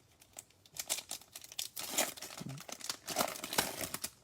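Trading-card packaging crinkling and tearing open by hand, a dense run of crackles and rustles that builds up in the second half.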